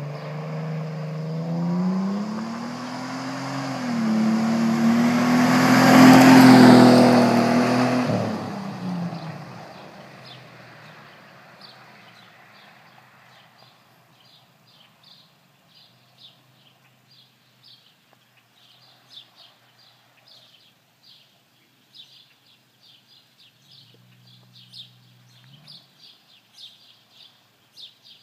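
1999 Ford Explorer's 4.0-litre SOHC V6, fitted with an aftermarket dual exhaust and tips, accelerating past in a driveby. The engine note climbs, is loudest about six seconds in as it passes, then drops in pitch and fades away by about ten seconds. Birds chirp repeatedly after that.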